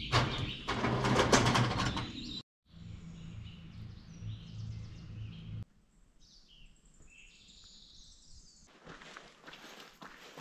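Small birds chirping and tweeting against an outdoor background. A louder stretch of rough noise comes first, and the background changes abruptly a few times.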